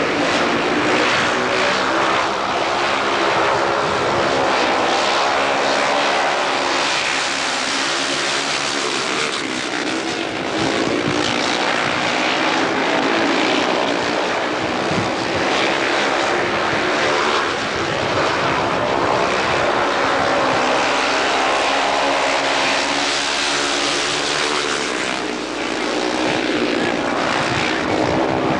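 A pack of speedway motorcycles racing, their 500 cc single-cylinder engines running hard. The engine pitch keeps rising and falling as the riders go round the track.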